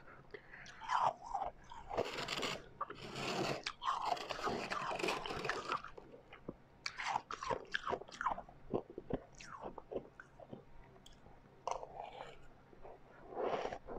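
Refrozen white ice being bitten and chewed, crunching between the teeth. A dense run of crunching comes a couple of seconds in, then slower, scattered crunches.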